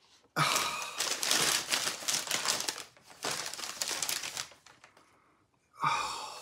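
Brown paper packaging crinkling and rustling as it is unwrapped by hand, in bursts over the first four seconds. A breathy sigh or gasp comes at the start and again near the end.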